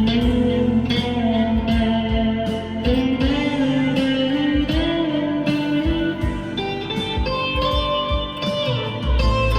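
Electric guitar, a 2021 PRS SE 245 with brass saddles, played clean with reverb and delay: sustained single-note lines with bends and slides, the notes ringing on into one another.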